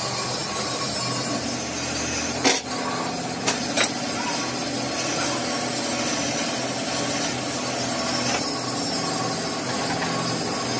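Steady machine-shop noise with a few sharp metal knocks about two and a half and three and a half seconds in, as a lathe's tool post is handled and set up.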